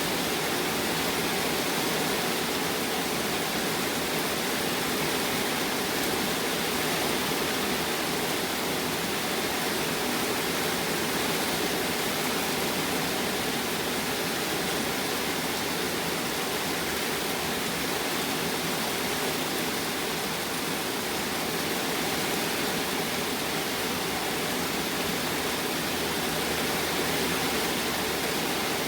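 Thunderstorm rain falling steadily, an even hiss with no thunderclap.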